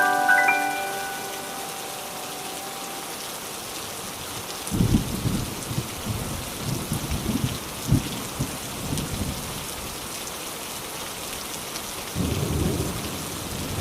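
Steady heavy rain falling, with low rumbles of thunder breaking in about five seconds in and again near the end.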